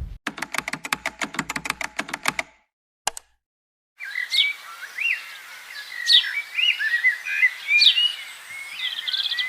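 A rapid rattle of evenly spaced clicks, about eight a second, for roughly two seconds, then a single click. After a short silence, small birds chirp and whistle in quick varied phrases.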